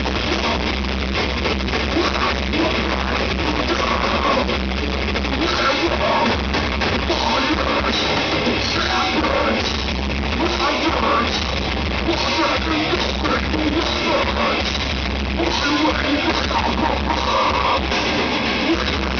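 Melodic death metal band playing live: distorted electric guitars, a drum kit and vocals, loud and dense without a break, as heard from the crowd in a club.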